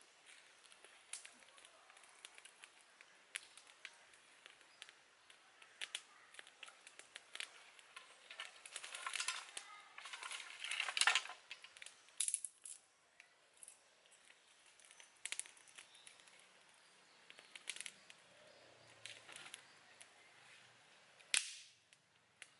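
Dry sticks and twigs cracking and snapping at irregular intervals, with a thicker run of snaps around ten seconds in and one loud crack near the end.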